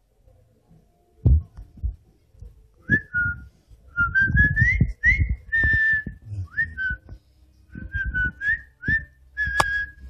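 Someone whistling a string of short sliding notes, some rising and some held, starting about three seconds in, over bumps and rustles of the phone being handled.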